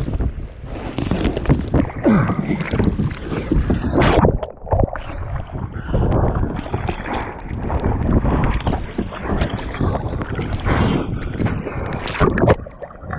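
Choppy, wind-driven waves splashing and sloshing against a kayak, with irregular slaps of water and brief gurgles, and gusty wind buffeting the microphone.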